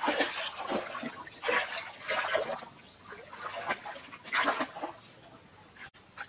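Hands splashing and sloshing in a shallow, rocky stream, in several irregular bursts, as stones on the streambed are grabbed and shifted underwater.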